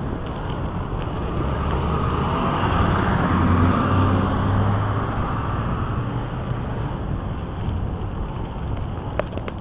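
Steady rushing noise of riding outdoors, the microphone jostled and buffeted. A low engine hum swells and fades a few seconds in, as a motor vehicle passes.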